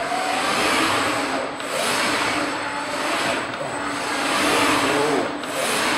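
Five-axis CNC machining centre running its linear and A/C rotary axes simultaneously at high feed in a tool-point tracking move, with no cutting. The servo axes whine and the noise swells and eases a little over a second apart as the table swings back and forth, with a thin steady high tone underneath.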